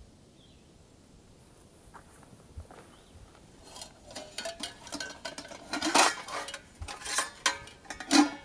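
Stainless steel camp cook pot and its lid clinking and clanking as the lid is handled and lifted off, a run of metallic clinks starting about three and a half seconds in, with the loudest clanks near the end.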